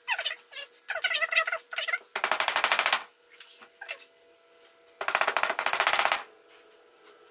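Red mallet striking the aluminium AC compressor housing in rapid runs of taps, two runs of about a second each, starting around two and five seconds in.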